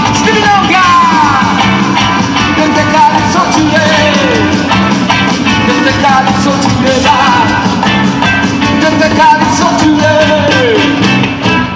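Ska-rock band playing live at full volume, with singing or shouted vocals over the full band. The sound drops out briefly near the end, then the band comes back in.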